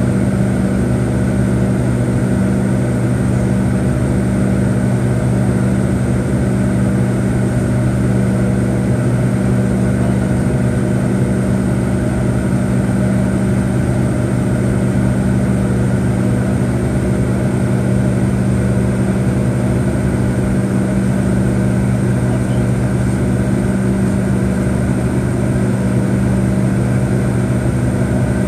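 Steady cabin drone of a McDonnell Douglas MD-88's tail-mounted Pratt & Whitney JT8D jet engines in the climb, heard from a rear window seat. It is a constant low hum with rushing air noise and a faint high whine, with no change in pitch or level.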